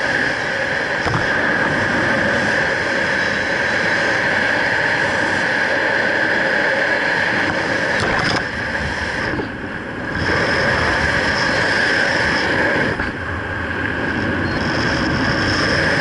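Steady wind rushing over a skydiver's camera microphone during the descent, briefly easing twice.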